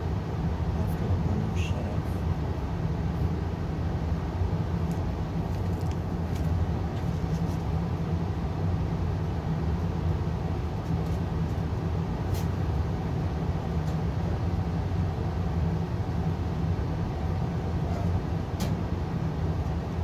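Payne gas furnace running: a steady low rumble from the burners and blower, with a few faint clicks.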